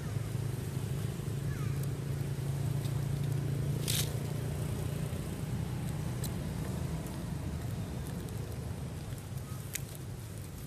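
A steady low motor hum, such as an idling engine, runs throughout. A few sharp clicks cross it, the loudest about four seconds in.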